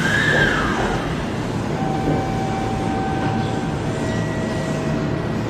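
A Kintetsu limited express train pulling into the station: a steady running rumble with electric motor whine. The whine holds steady tones that step down in pitch as the train slows. A short high tone rises and falls about the first second.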